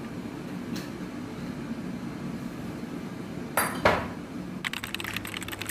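Glass jar set down on a kitchen counter with two quick knocks, over a steady low hum. Near the end a fast run of fine ratchet-like clicks begins.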